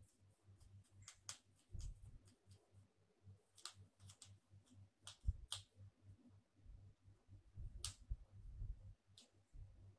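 Faint, scattered clicks and taps of a thin wooden stick against a small plastic cup as it is stirred, over a low hum.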